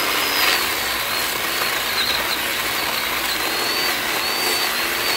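Battery-powered Black+Decker chainsaw with a 10-inch bar and a freshly sharpened chain cutting through a log: steady motor and chain noise with a high whine that wavers and dips as the chain bites into the wood.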